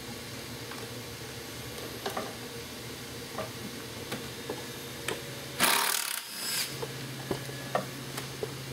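Small clicks and scraping of hand tools working the oil-pump screws on a snowmobile's oil tank, over a steady low hum, with one short loud burst of noise about six seconds in.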